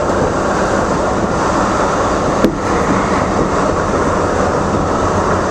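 DART light rail train running at speed, a steady rumble and rush heard from inside the front car. A single sharp click about halfway through.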